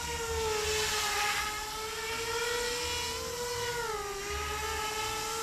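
Electric motors and propellers of a Z-2 bi-copter (dual-rotor RC helicopter drone) whining steadily in flight, the pitch wavering slightly and dipping briefly about four seconds in as the rotor speed changes.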